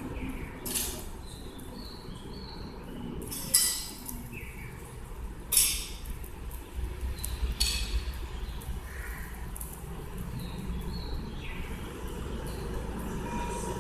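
Small birds chirping in short high notes, with four sharp clicks spread through, the loudest about three and a half and five and a half seconds in.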